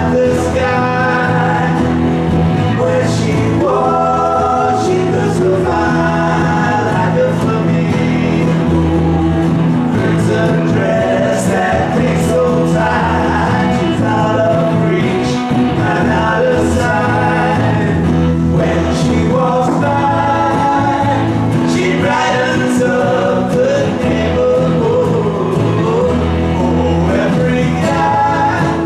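A small live band playing a song, with several male voices singing together over sustained low notes.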